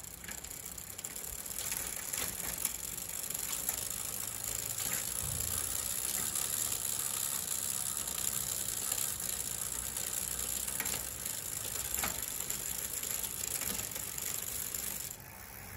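Bicycle drivetrain running: the chain whirs over a 6-speed freewheel and through a Shimano Tourney rear derailleur as the rear wheel spins, with a few sharp clicks along the way. It stops abruptly near the end.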